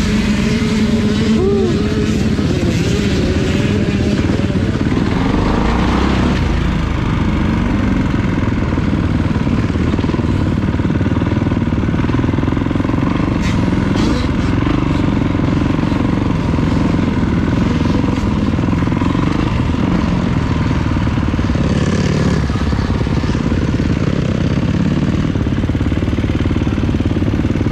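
Kawasaki motocross bike's engine running at low speed, rolling steadily without hard revving.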